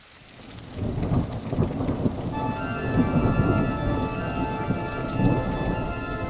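Thunderstorm: steady heavy rain with rolling thunder, fading in over the first second and swelling louder a few times. A held musical chord of sustained tones comes in a little over two seconds in.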